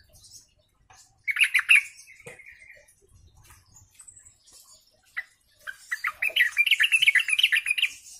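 Yellow-vented bulbul (trucukan) singing in rapid bubbling chatters: a short phrase about a second in, then a longer one of about two seconds near the end.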